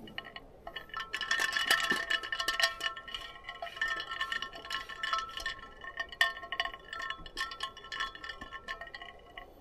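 Ice cubes clinking against a glass: many quick, irregular clinks, each leaving a short ringing glass tone.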